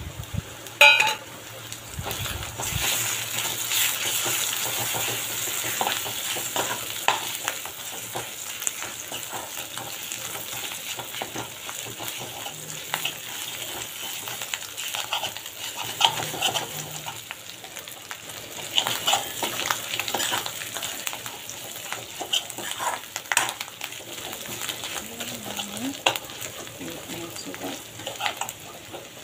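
Fish and sliced onions sizzling in hot oil in a steel kadai, with a steel spoon scraping and clinking against the pan as it is stirred. There is a sharp knock about a second in, and the sizzle grows louder for a few seconds just after.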